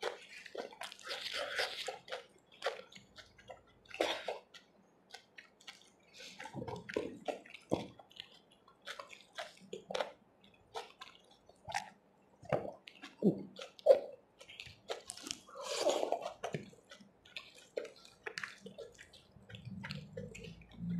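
Wet eating sounds of chickpea curry (chole) eaten by hand: irregular smacks, clicks and squishes of chewing and of fingers working the food.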